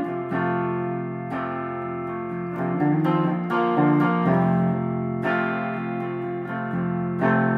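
Semi-hollow-body electric guitar played through an amplifier, picking a slow run of chords and single notes that are each left to ring out.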